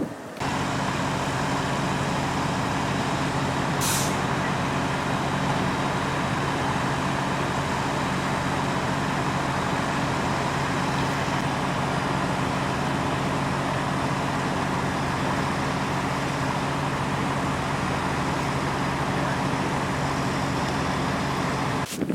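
A large vehicle's engine running steadily, with a short hiss about four seconds in.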